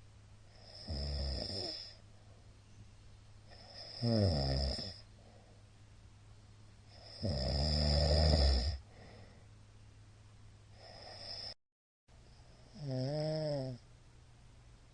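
A middle-aged man snoring loudly in his sleep: five harsh snores about three seconds apart, the fourth one faint. The last snore carries a clear pitched note that sags and then rises.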